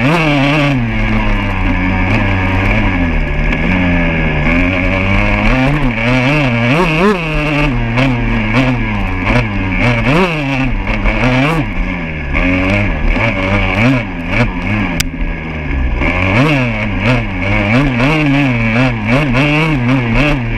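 Dirt bike engine being ridden hard, revving up and dropping back over and over as the rider works the throttle, its pitch climbing and falling every second or two.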